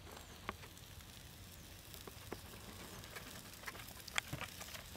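Faint, scattered light clicks and ticks over a quiet background, with a few sharper ones about half a second, two seconds and four seconds in.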